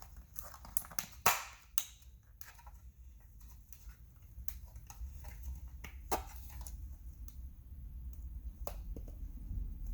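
Scattered sharp clicks and taps of plastic side-mirror trim being handled and pressed into place, the loudest about a second in.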